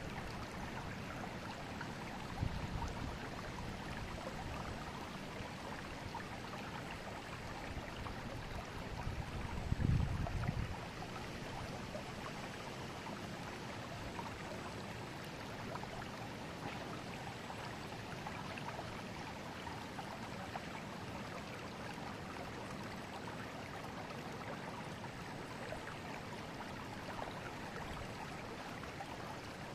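River water flowing in a steady rush, with a short low rumble about ten seconds in and a weaker one near the start.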